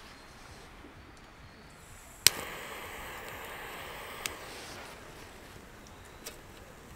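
A butane torch lighter clicks to ignite about two seconds in and its flame hisses steadily for about three seconds, held to a fire-starter cube to light a campfire; a second click comes during the hiss.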